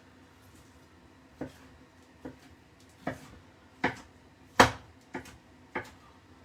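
Knife cutting down onto a chopping board: about seven short, sharp knocks at uneven intervals, the loudest a little past the middle.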